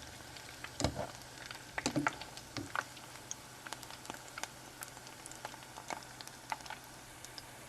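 Vegan hush puppy (corn fritter) batter frying in a pan of oil, with a steady faint sizzle and frequent small crackles and pops. A few louder knocks come in the first three seconds.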